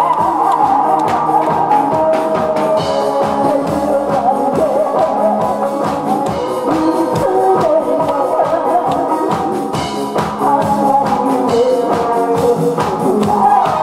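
Woman singing into a microphone over a recorded backing track with a steady drum beat.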